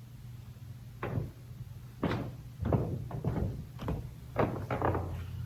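A series of soft knocks and thumps, about seven or eight spread irregularly over a few seconds, over a steady low hum.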